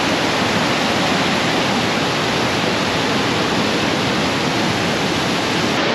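A mountain waterfall and its rapids rushing over boulders: a loud, steady rush of white water with no change in level.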